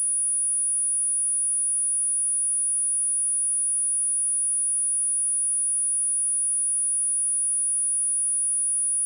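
A single steady, high-pitched pure sine tone at 9752 Hz, a test tone for checking speakers and headphones.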